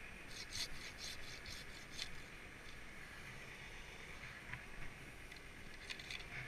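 Scraping and rubbing of a tree climber's body and gear against bark as he moves along the limbs: a quick run of short scrapes in the first two seconds, a couple more near the end.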